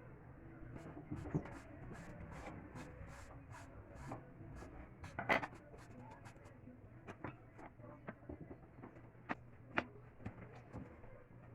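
Faint scattered clicks and light taps of small parts being handled, the clearest about halfway through and two more sharp ones later on, over a low steady hum.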